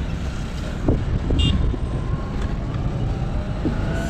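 Steady low rumble of vehicle engines in street traffic, with wind on the microphone and a brief high-pitched chirp about one and a half seconds in.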